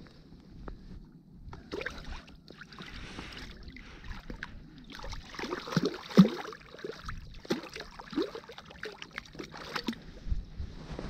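Trout thrashing in a landing net held in shallow water, splashing in irregular bursts with the loudest splash about six seconds in.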